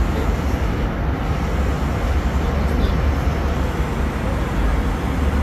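Steady cabin noise inside an Airbus A320 in flight: a deep, constant engine rumble under the even rush of air past the fuselage.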